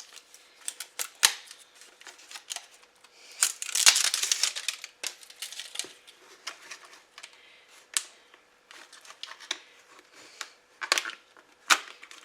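Whipped topping being scooped out of a plastic Cool Whip tub into a mixing bowl: scattered clicks and taps of a utensil against plastic, with a longer scraping rustle about four seconds in.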